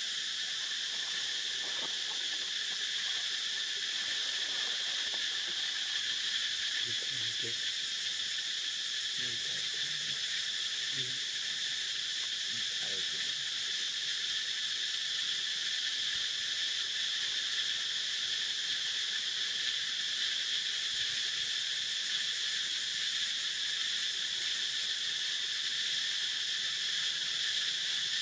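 Insects buzzing in a steady, unbroken chorus, high-pitched and constant.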